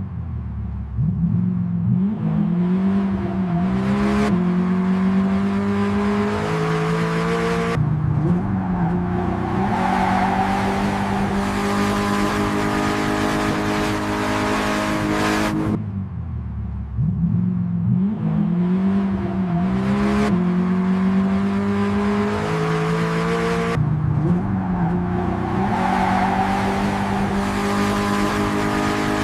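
Lamborghini V10 engine revving and accelerating hard. Its pitch climbs, then holds high, with several abrupt jumps in the sound. The same run of about sixteen seconds plays twice.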